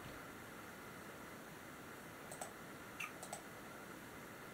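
Faint computer mouse clicks over quiet room tone: a couple of clicks about two and a half seconds in, then a few more about three seconds in.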